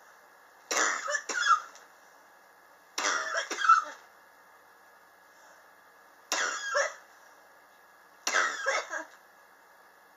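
A person coughing in four fits, each of two or three quick hacking coughs, a couple of seconds apart. It is a chronic, long-lasting cough.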